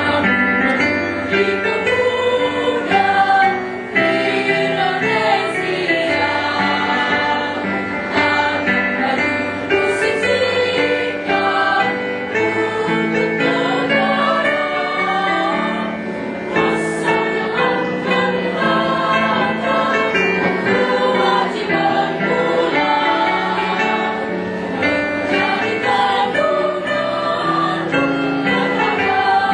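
A choir singing a song in harmony, voices held on long, sustained notes.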